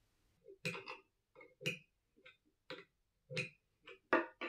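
A series of about ten sharp metallic clicks and knocks at an irregular pace, from handling a brushless motor in the threaded tool used to pair its rotor and stator. The last two, near the end, are the loudest.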